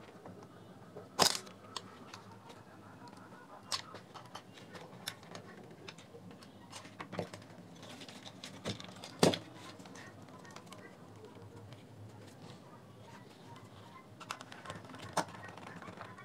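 Plastic speaker housing and parts handled and pressed into place by hand: scattered small clicks and knocks, with two sharper knocks about a second in and about nine seconds in.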